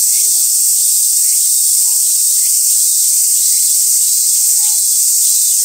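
Loud chorus of cicadas: one continuous, even high-pitched buzz that does not let up.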